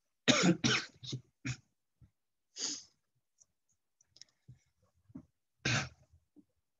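A man coughing in a series of short coughs. The first two are the loudest, a few lighter ones follow, and there is one more near the end.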